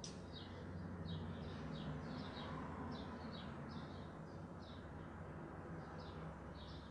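A bird chirping faintly over and over, short high chirps about two a second, over a low steady hum.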